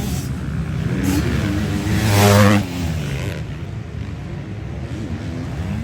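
Motocross bike engines revving on the track, pitch rising and falling as they accelerate and shift; the loudest bike passes close about two seconds in, then the engines continue more distantly.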